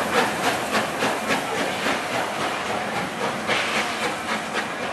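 NSW C36 class steam locomotive 3642 pulling away under power: sharp exhaust chuffs about three a second over a steady hiss of steam, growing fainter as it draws off.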